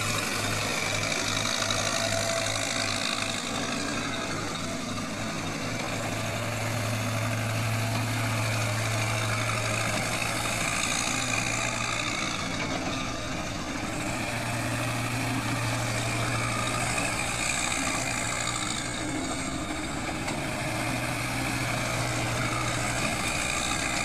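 Diesel engine of a Cat backhoe loader running steadily while the machine works its loader and backhoe arms, a low hum that grows louder for a few seconds at a time, three times.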